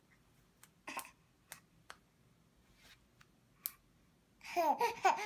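Eight-month-old baby clapping his hands: a few soft, scattered claps, then a high voice rising and falling near the end.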